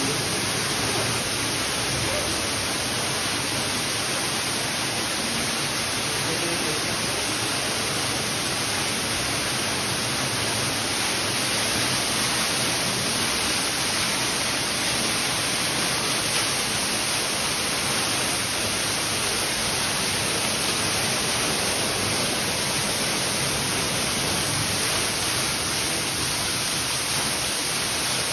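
Cave waterfall: water pouring in many streams from the rock overhead and splashing into a pool below, a steady, even rush.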